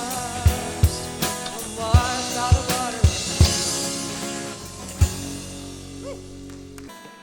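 Live worship band music: drum kit beats over a held chord, with a wavering melodic line in the first few seconds. A last drum hit about five seconds in, then the chord rings out and stops shortly before the end.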